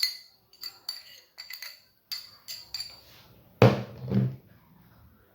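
Metal utensil tapping and clinking against a glass mixing bowl, a string of light clicks, while lemon flavouring and zest go into the whipped eggs and sugar. A louder, short lower sound comes a little past halfway.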